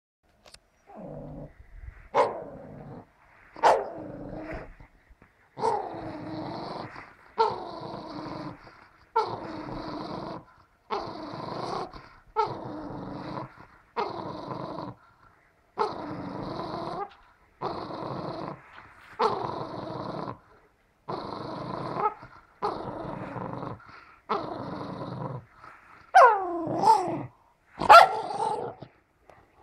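Small white hunting dog growling in repeated bouts, one every second and a half or so, while it worries at something in its mouth. Near the end it breaks into louder, higher yelping barks.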